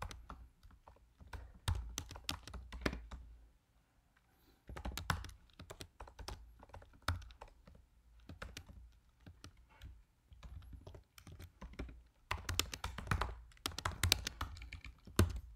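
Typing on a computer keyboard: irregular runs of keystrokes, with a short pause about four seconds in and a dense flurry of fast typing near the end.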